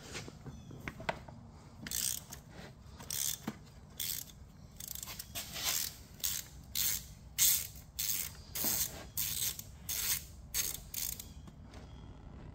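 Hand ratchet wrench being worked in short strokes: a run of quick clicking bursts, about one to two a second, starting about two seconds in and stopping shortly before the end.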